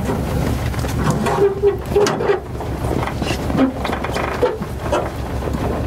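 ZIL truck engine idling with a steady low rumble, with scattered knocks and bumps from people climbing up into the truck's body.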